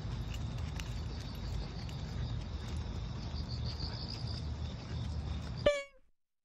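Crickets chirping steadily over a low outdoor rumble. Near the end a brief falling-pitched tone sounds, the loudest moment, and the sound then cuts off to silence.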